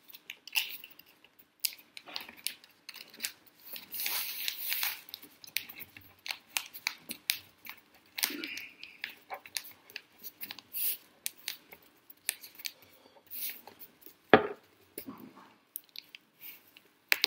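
A sheet of newspaper being rolled tightly around a pencil into a stick: paper crinkling and rustling in irregular bursts with crisp crackles, and one sharper knock about fourteen seconds in.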